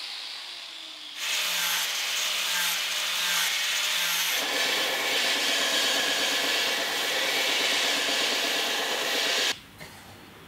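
An angle grinder spinning down, then a belt sander grinding the corners off a steel plane blade with a steady rasping roar, the sound shifting heavier about four seconds in. It cuts off suddenly near the end.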